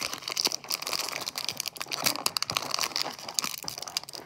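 Foil wrapper of a Pokémon card booster pack crinkling and tearing as it is opened by hand: a steady run of crackly rustles.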